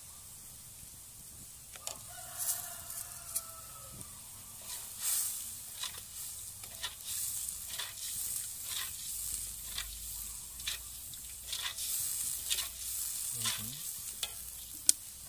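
A metal spoon stirs and scrapes a spice-paste broth in a metal wok over a gas burner, with repeated short clinks against the pan over a light sizzle. A rooster crows once, about two seconds in.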